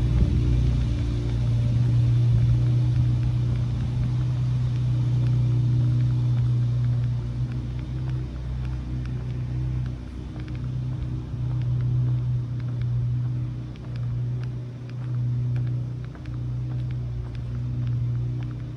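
A steady low mechanical hum with several overtones, dipping briefly a few times in the second half.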